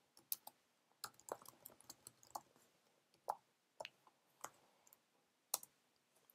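Faint keystrokes on a computer keyboard, irregular clicks as a command is typed.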